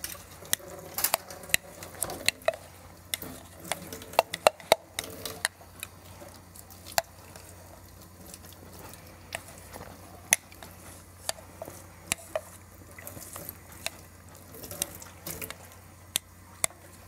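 A spoon stirring in a glass, clinking against its sides in many irregular sharp clinks, over a low steady hum.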